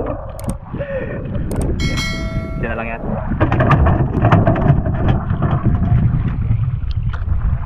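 Wind rumbling on the microphone and sea noise around a small outrigger boat while a tuna is hauled aboard on a handline, with a few sharp knocks, short shouts and a brief ringing tone about two seconds in.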